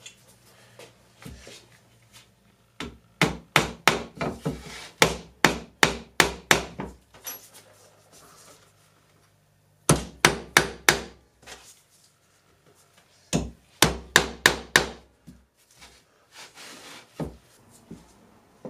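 Steel hammer driving a nail into a wooden plank with quick, sharp blows of about three a second. The blows come in three runs: a long one of about a dozen strikes, then two shorter ones after brief pauses. A few lighter taps follow near the end.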